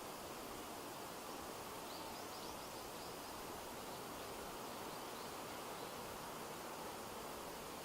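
Steady outdoor background noise, like wind and distant rustle, with a quick run of faint high chirps about two seconds in.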